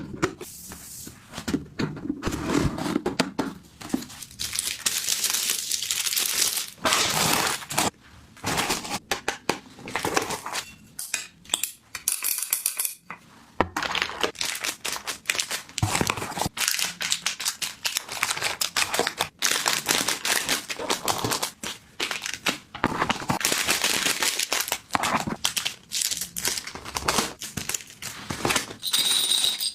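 Packaging being handled and unwrapped by hand: crinkling and rustling of wrapping, broken by many sharp clicks and taps, with brief pauses.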